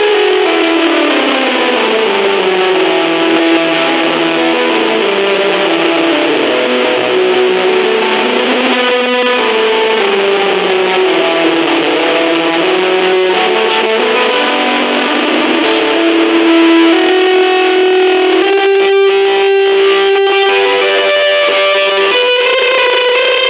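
Electric guitar played through a Junkbox Amplification Death Metal Droid battery-powered amp, with effects including distortion. Echoing repeats sweep slowly down in pitch and back up, then settle on steadier held notes near the end.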